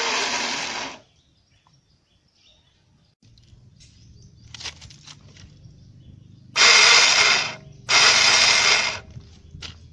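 Honda scooter's electric starter motor whirring free in three short bursts of about a second each, without turning the engine over. The starter's one-way clutch is not engaging the crankshaft, its rollers worn out of round.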